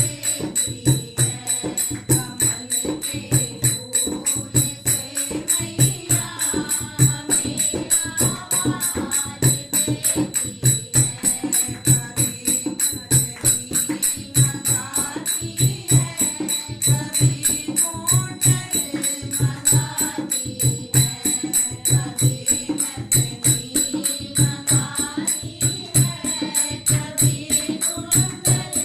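A Hindi devotional bhajan sung over a fast, steady percussion beat with regular low drum strokes, and a faint steady high whine underneath.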